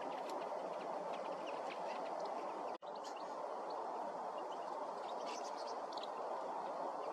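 A feeding flock of small finches calling faintly in short high notes over a steady background rush. The sound cuts out for an instant about three seconds in.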